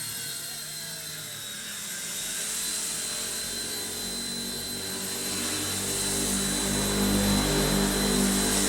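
Small four-channel electric RC helicopter lifting off and hovering: a steady high-pitched motor whine with rotor noise that grows louder about halfway through.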